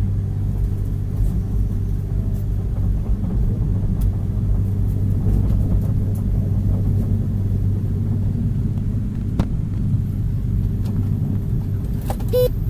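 Tejas Express coach rumbling and humming steadily as the train rolls slowly out of the station, heard from inside the cabin. A short high-pitched tone sounds near the end.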